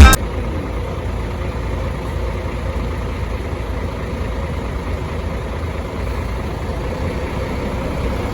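Heavy diesel bus engine idling with a steady low rumble. Loud music cuts off right at the start.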